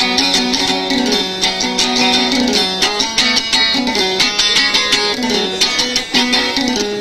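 Oud played in a fast, continuous run of plucked notes, the melody stepping up and down.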